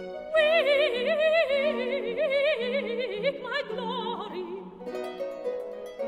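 Baroque aria: a soprano voice sings one long wavering phrase over plucked triple harp and strings, falling in pitch and dropping out about four and a half seconds in, leaving the harp and strings playing on.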